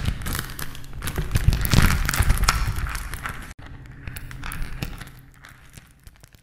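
Debris sound effect of many small fragments crumbling and clattering over a low rumble. It cuts off abruptly about three and a half seconds in, and a weaker crumbling follows and fades away.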